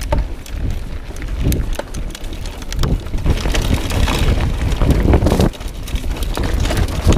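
Wind buffeting the camera microphone over the rumble of a mountain bike rolling down a rough gravel and dirt trail, with many small knocks and rattles from the bike over the bumps.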